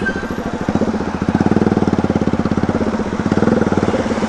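Motorcycle engine running with no silencer fitted, its open exhaust very loud as the bike is ridden. The exhaust pulses come in a rapid, steady train that swells slightly twice.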